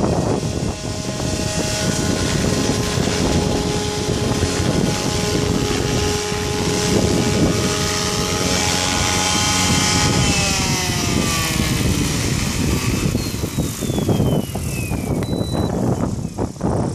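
Goblin 500 electric RC helicopter with an Xnova 1200kv brushless motor, hovering with a steady rotor and motor whine, then landing and spooling down. From about ten seconds in the pitch falls as the rotor winds down, with a last high whine sliding down near the end.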